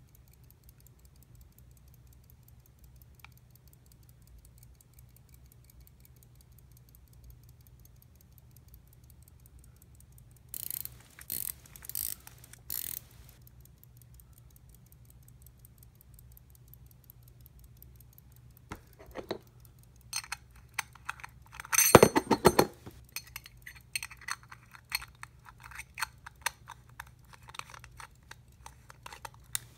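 Hamilton 990 pocket watch movement ticking fast and faintly with its case back open. About ten seconds in come four short loud bursts of clicking, and later a run of metallic clicks and scrapes as the gold-filled case is handled and its back put on, loudest about 22 seconds in.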